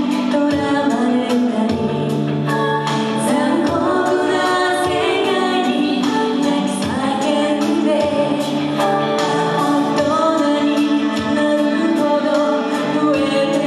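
Women singing together into microphones over a karaoke backing track with a steady beat.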